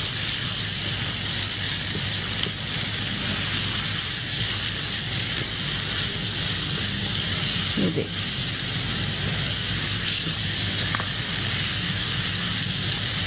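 Minced meat (keema) sizzling steadily as it fries in oil in a wok during browning, stirred with a spoon.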